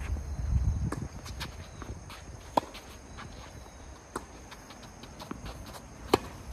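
Tennis rally on a hard court: three loud, sharp pops of racket strings striking the ball, about a second and a half to two seconds apart, with fainter knocks of ball bounces and footsteps between.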